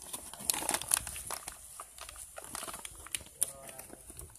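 Plastic bag of potting soil crinkling and crackling in irregular rustles as hands handle it while planting a rose cutting.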